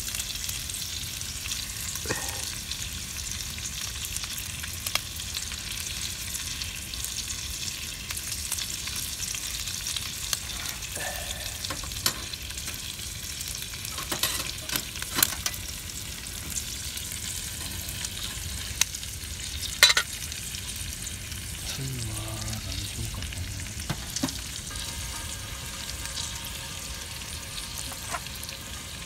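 Food sizzling steadily in a frying pan, with a few sharp clinks of a utensil; the loudest clink comes about two-thirds of the way through.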